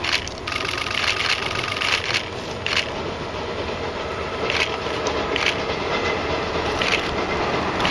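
Steam-hauled passenger train approaching along the track, a noisy rumble that grows slowly louder, with a few sharp clicks scattered through it.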